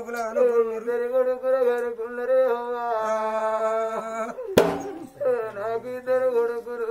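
A single voice singing an Oggu Katha folk-ballad phrase in slow, drawn-out held notes that bend and waver. About two-thirds through, one sharp hit cuts in.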